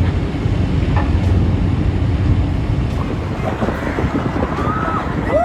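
Loud, steady rumbling noise with wind buffeting the microphone, and a few short voice-like calls near the end.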